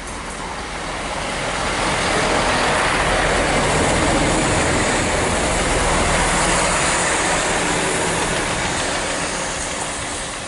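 Class 166 Turbo diesel multiple unit passing through at speed: engine drone and the rumble of wheels on rail swell as it comes level, hold for a few seconds, then fade as it pulls away.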